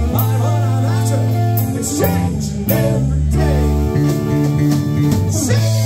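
Live rock band playing: electric guitar over electric bass and a drum kit, with repeated cymbal hits.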